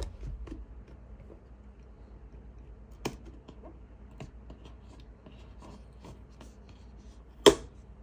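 Handling a cardboard retail box on a wooden desk: a knock as the box is set down, then scratching and small ticks as a utility knife slits the seal sticker, and one loud sharp click near the end as the lid comes open.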